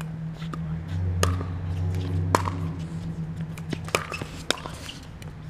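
Pickleball paddles striking the ball in a rally: a series of sharp pops about a second apart, the second the loudest, over a steady low hum.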